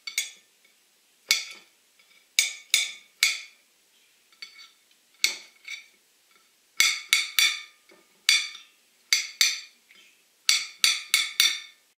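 Kitchen knife dicing avocado on a ceramic plate: the blade clinks sharply against the plate each time it cuts through, in irregular runs of three or four quick taps with short pauses between.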